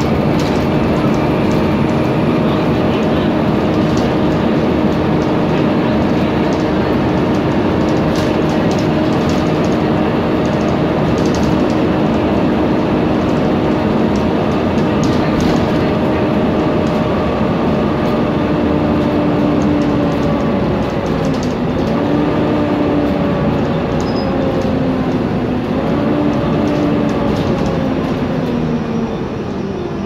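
Volvo B7TL double-decker bus with a ZF gearbox heard from on board while driving, its loud hoover-like whine sounding steadily over engine and road noise. In the last third the whine's pitch dips and climbs again twice, then falls away as the bus slows.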